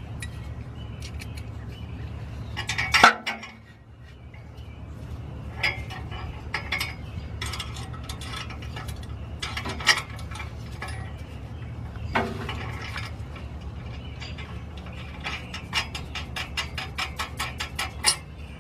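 Hand ratchet clicking and metal parts clinking as a U-bolt exhaust clamp is fitted and tightened on the joint between the catalytic converter and the resonator pipe. There is a sharp metal clank about three seconds in, and a quick run of ratchet clicks near the end.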